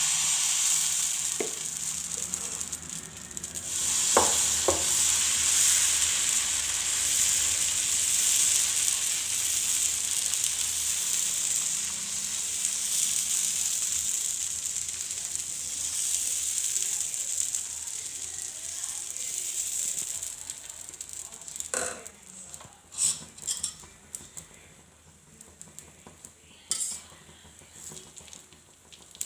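Hot dosa tawa sizzling, a steady hiss that fades away over about twenty seconds, then scattered light scrapes and clinks of a utensil on the pan.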